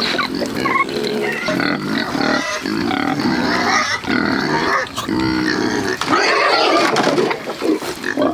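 A litter of Kunekune piglets grunting without pause as they eat banana, several voices overlapping.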